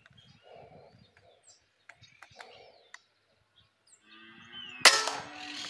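Small birds chirping, then about five seconds in a single sharp shot from a 5.5 mm (.22) M16 air rifle.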